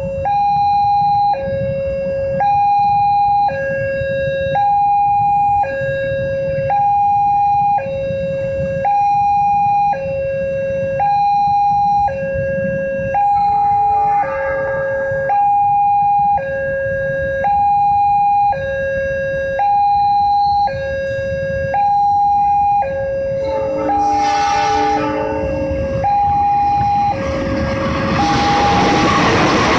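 Railway level-crossing warning alarm sounding a steady two-tone high–low signal, each tone about a second long, meaning a train is about to pass. A brief horn sounds about 24 s in, and near the end the rising noise of the arriving train starts to drown the alarm.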